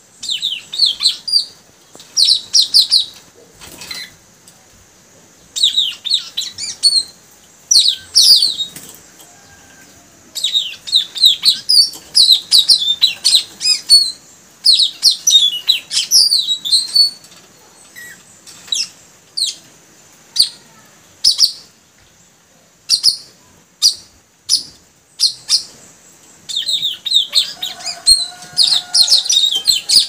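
Puling birds singing vigorously: rapid, high chirping phrases in bursts of a second or two, a long unbroken run of song in the middle, then scattered single calls before dense song returns near the end. A faint steady high hiss runs underneath.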